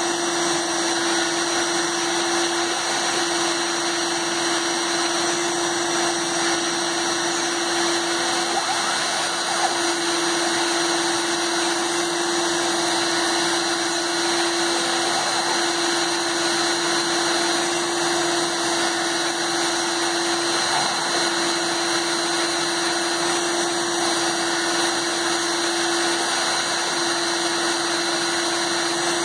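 A Proxxon rotary tool, run as the spindle of a home-made CNC machine, spins at high speed with a steady whine while a 1.05 mm PCB drill bit bores holes in a copper-clad circuit board. Its steady pitch sags briefly every few seconds.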